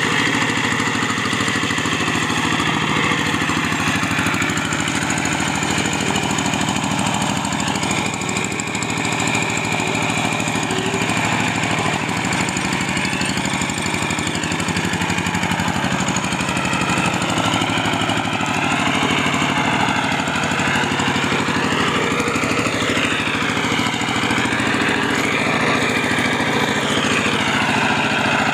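Kubota G3000 hand tractor's single-cylinder diesel engine running steadily under load while plowing deep paddy mud, with a wavering pitch rising and falling in the second half.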